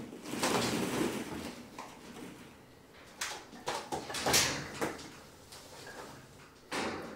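Hollow plastic ball pit balls shifting and clattering against one another as bodies move through them: a rustling stretch at the start, then a run of sharp clacks a few seconds in and another burst near the end.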